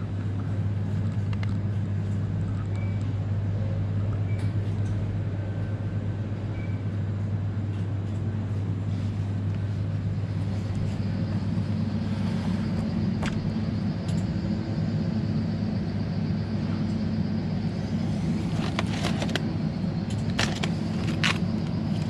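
Steady low electrical hum of a food shop's refrigerated cases and ventilation. Three short high beeps sound in the first seven seconds, and a few sharp clicks and knocks come near the end.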